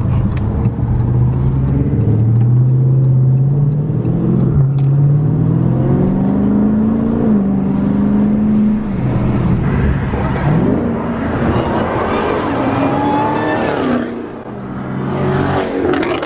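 Dodge Charger V8 engine accelerating: its pitch climbs steadily for about eight seconds, drops sharply as it shifts up, then climbs again.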